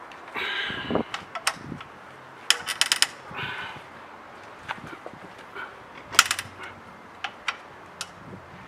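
Metal clicks and clinks of an 8 mm Allen key working a motorcycle frame-slider bolt by hand. There are scattered single clicks, with two quick clusters of clinks, one about two and a half seconds in and one about six seconds in.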